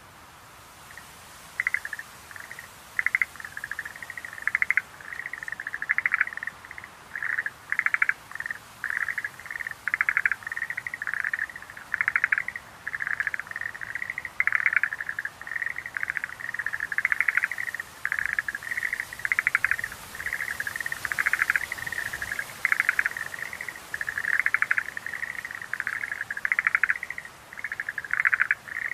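Schlegel's green tree frogs calling: short rattling trills repeated one after another in a near-continuous chorus that starts about a second in.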